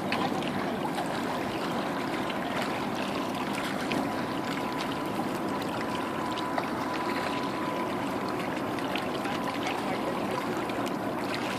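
River water washing and lapping against shoreline rocks, a steady rushing wash, with a faint thin steady tone in the background for most of the time.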